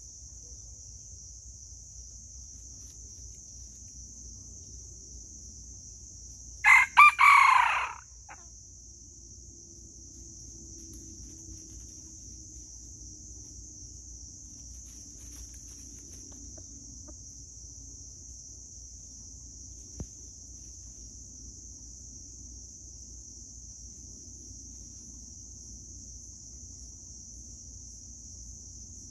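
Red junglefowl rooster crowing once, a short crow about six and a half seconds in, over a steady high insect drone.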